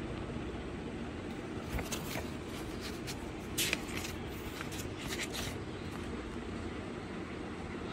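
Book pages rustling as they are handled and turned, a few short rustles, the loudest a little under halfway, over a steady low hum.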